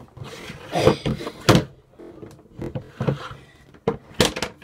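A handful of knocks and thumps from objects being handled close to the microphone, the loudest about a second and a half in and near the end.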